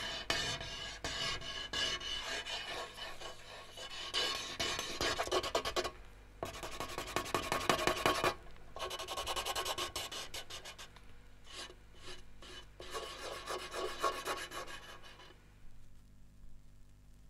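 Rasping, scraping noise made of dense, rapid strokes. It breaks off briefly twice and fades out near the end, over a steady low hum.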